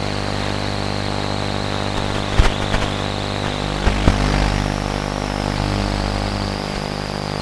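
A radio-controlled model aircraft's motor and propeller running steadily at an even pitch, with a few sharp knocks about two and a half and four seconds in.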